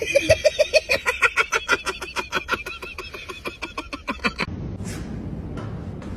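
People laughing hard, a fast string of ha-ha bursts at about four to five a second. It cuts off suddenly about four and a half seconds in, leaving a low steady background noise.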